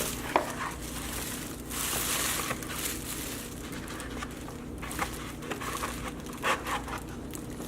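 Packaging crinkling and rustling in irregular handfuls as items are lifted out of a meal-kit delivery box, with a few small clicks.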